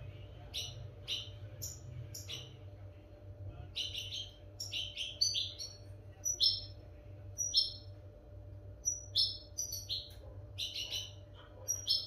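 European goldfinch singing: short, sharp chirping notes, many of them quick downward sweeps, in irregular clusters with brief gaps. It is a clean goldfinch song of the kind used to tutor young goldfinches.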